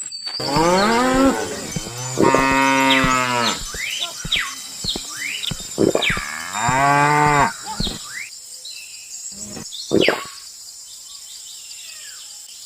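Cow mooing: two long calls close together, then a third a few seconds later, with short high chirps in between.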